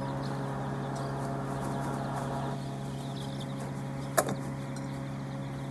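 A steady mechanical hum throughout, with faint peeping from a mass of young chicks and one sharp click a little over four seconds in.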